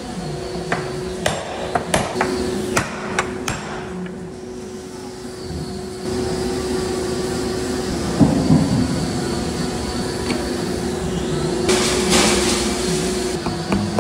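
Wooden oak barrel staves knocking and clattering as they are set one by one into a steel hoop: a run of sharp knocks in the first few seconds, a heavier knock near the middle and a scraping sound near the end. A steady hum runs underneath.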